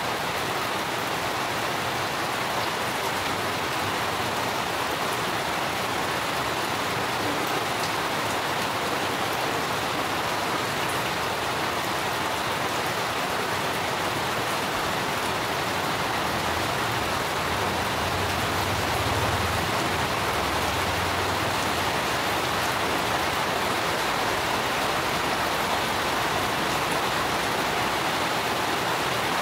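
Steady rain falling, an even hiss. A low rumble joins for a few seconds past the middle.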